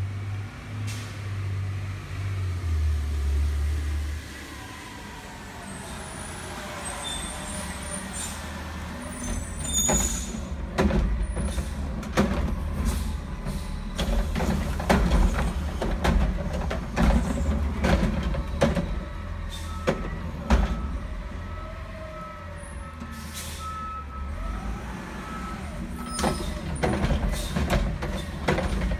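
Organics garbage truck's diesel engine rumbling steadily as it approaches, with a run of sharp clanks and knocks from about ten seconds in and a high intermittent tone for a few seconds near the end.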